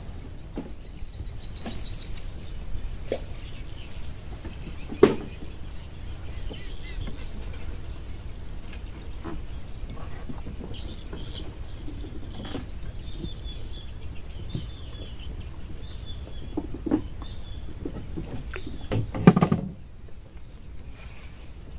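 Open-air ambience on the water: faint bird chirps, a thin steady high whine and a low rumble of wind, broken by a few sharp knocks, the loudest about five seconds in and another pair near the end.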